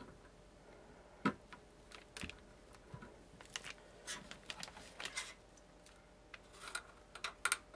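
Faint scattered clicks and handling noise from pushing a fan cable's plastic plug onto a motherboard's CPU fan header and moving the board; the sharpest click comes a little over a second in.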